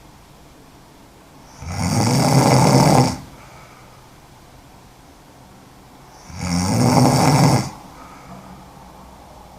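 A woman snoring heavily: two loud snores, each about a second and a half long, about four to five seconds apart, with quieter breathing between them.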